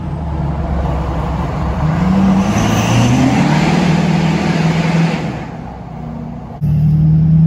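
Pickup truck's engine heard from inside the cab while driving, pulling up in pitch about two seconds in and then running steadily with road noise. The sound eases off near the end, then comes back abruptly louder.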